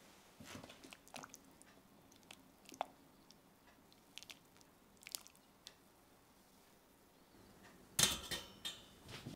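Metal kitchen tongs handling blanched pork ribs, with faint scattered clicks and wet squishes as a rib is lifted out of the pot of water. About eight seconds in, a louder run of sharp taps as the rib is set down on a metal wire rack.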